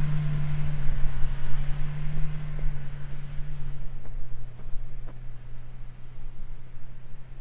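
Dacia Duster 1.3 TCe engine droning steadily as the car pulls away up a snowy track, the drone fading and dropping slightly in pitch about four seconds in. A steady crackling hiss runs underneath.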